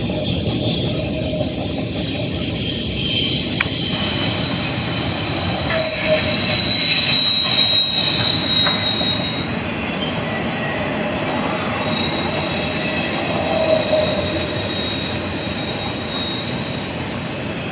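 Norfolk Southern double-stack intermodal freight train rolling past at speed: a steady rumble of wheels on rail with high-pitched wheel squeal, loudest about six to nine seconds in and easing slightly toward the end.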